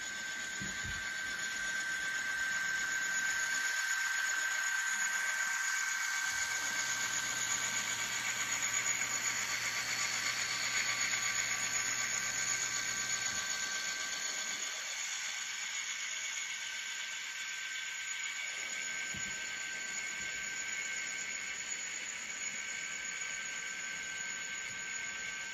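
N scale model freight train running past on its track, led by a Bachmann Dash 8-40CW with DCC sound. A steady hiss with a high whine of the wheels, motor and sound decoder's small speaker, loudest about ten seconds in as the locomotives go by.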